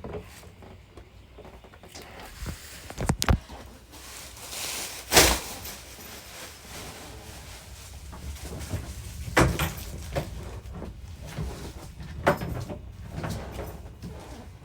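Kitchen cupboards and dishes being handled: several sharp knocks and clacks a few seconds apart, typical of cupboard doors shutting and crockery being set down.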